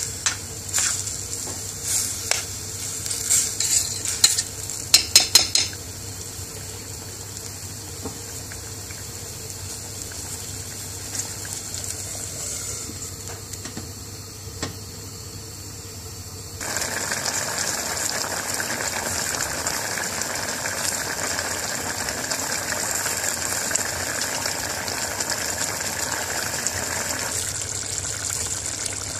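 A spoon stirs chicken curry in a stainless-steel pot, clinking against the metal several times in the first few seconds. A quieter stretch follows. About halfway through, a louder steady sizzling and bubbling of the simmering curry starts suddenly and carries on.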